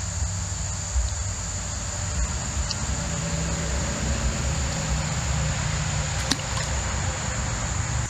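Steady high-pitched insect drone, crickets or similar, over a continuous low rumble and hiss. A single sharp click comes about six seconds in.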